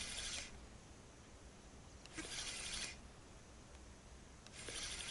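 Spinning reel cranked in three short spells about two and a half seconds apart, each a brief scratchy whir: the stepped retrieve of a jig lure.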